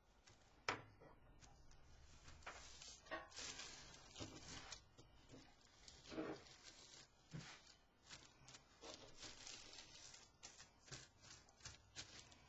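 Tissue paper rustling and tearing in short, irregular strokes as pieces are torn and pressed down onto wax paper. There is a sharp tap about a second in.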